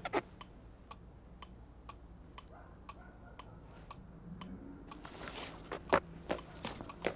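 Pendulum cuckoo clock ticking steadily, about two ticks a second, with a few louder thumps and rustles near the end.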